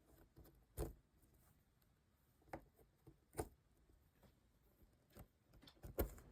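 Faint, sparse clicks and taps of cardboard jigsaw puzzle pieces being handled and fitted, about five in all, the loudest near the end.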